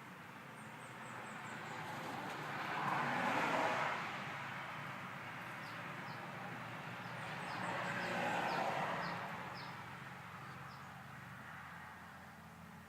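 Two vehicles passing by one after the other, their engine and tyre noise swelling and fading away, over a steady low engine hum.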